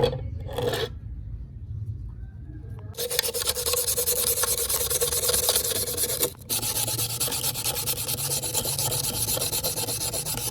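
Fast, steady rasping of an abrasive being worked over a steel knife blade, as in filing or sanding off rust. It starts about three seconds in and pauses briefly around the middle.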